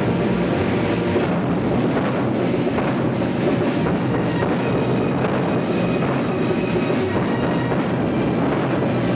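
An orchestra with a full brass section playing a loud, dense passage of film score without pause.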